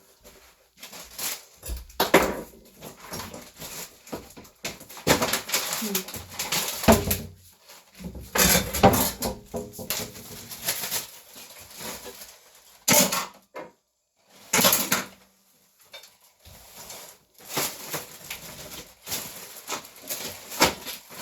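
Kitchen handling noises: irregular rustles, clicks and clatters of bags, containers and dishes being moved about as strawberries are packed away. There is a brief quiet gap a little before the middle.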